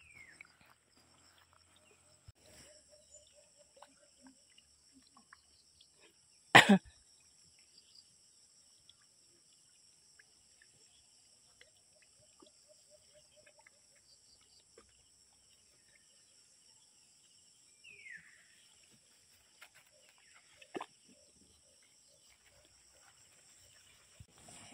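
Quiet outdoor ambience with a steady high-pitched insect drone, broken by one sharp knock about six and a half seconds in and a few faint short calls.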